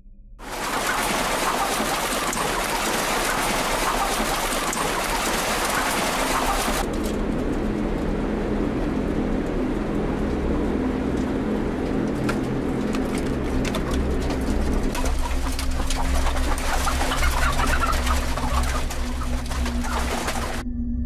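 A chorus of many caged laying hens calling together, over a steady low machine hum. About seven seconds in, the sound changes abruptly: the high part of the chorus drops away and the hum comes forward. The sound cuts off shortly before the end.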